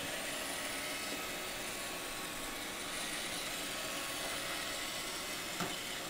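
iRobot Roomba 560 robot vacuum running while it cleans the floor: a steady, even whir.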